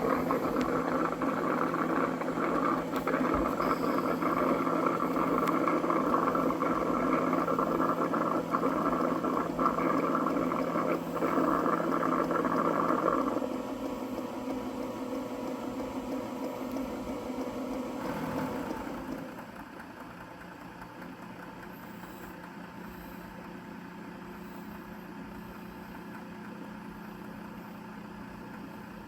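Cuckoo robot vacuum docking station running its mop-washing cycle: a steady mechanical whir that drops in level about halfway through, then drops again and settles into a quieter steady hum.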